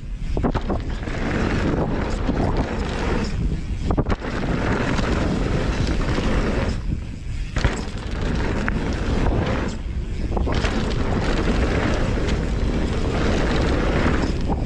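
Wind rushing over the action camera's microphone and a mountain bike's knobby tyres rolling on packed dirt, with brief lulls several times as the bike clears jumps and sharp clacks of the bike rattling on landings.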